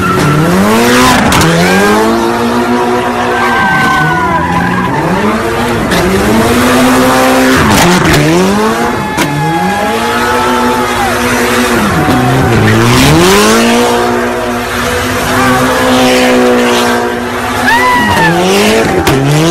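A car spinning donuts, its engine revved hard and let fall again every second or two while the spinning tyres squeal and screech on the pavement.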